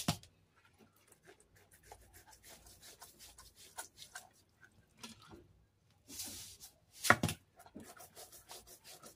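Hands rubbing salt over the skin and scales of raw tilapia on a ceramic plate: a run of small rasping scrapes and clicks. There is a louder knock about seven seconds in.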